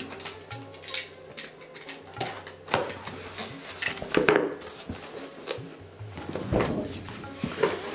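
Corrugated cardboard shipping box being opened: a cutter slitting the packing tape, then the lid and flaps pulled open and folded back, with scraping, rustling and knocks of cardboard, the loudest about three and four seconds in and again near the end.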